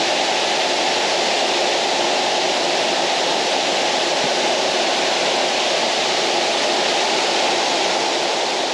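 Waterfall rushing: a loud, steady, unbroken noise of falling water.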